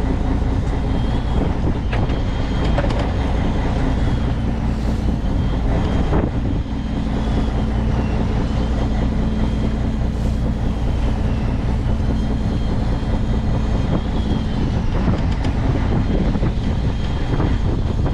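Steady low mechanical rumble of a fishing boat's engine running, with a thin high whine that wavers and dips every couple of seconds.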